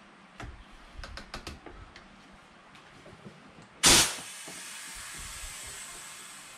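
Several light clicks from handling a metal bait-mold rig, then a sudden loud hiss that settles into a steady, quieter hiss with a thin high whine.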